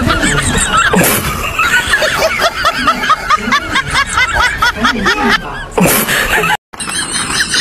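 High-pitched, rapid snickering laughter in quick wavering bursts, with a brief dropout to silence near the end.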